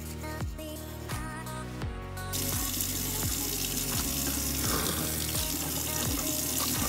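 Bathroom faucet turned on about two seconds in, with water running steadily into the sink. Background music with a steady beat plays under it.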